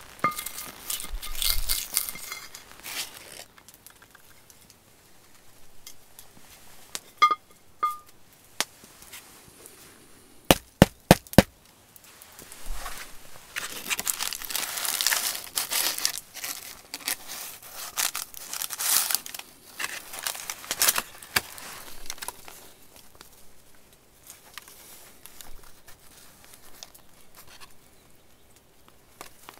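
Baking paper crinkling and rustling as a loaf of bread is lifted out of a cast-iron Dutch oven, with a few light clinks and then four sharp knocks in quick succession about a third of the way in.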